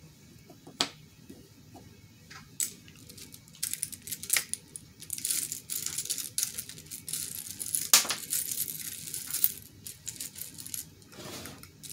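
Buttons clicking and rattling against each other and a glass jar as a hand rummages through the jar. A few separate clicks come first, then dense rattling from about four seconds in, with the sharpest click near eight seconds.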